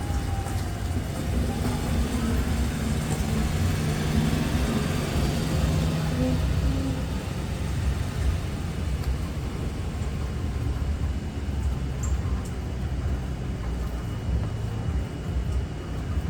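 Steady rain falling, heard as an even hiss over a low rumble, with a faint hum in the first half.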